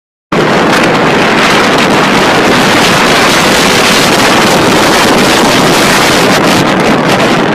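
Loud, steady rush of wind and road noise from a car moving at highway speed, the wind buffeting the phone's microphone. It starts abruptly a moment in.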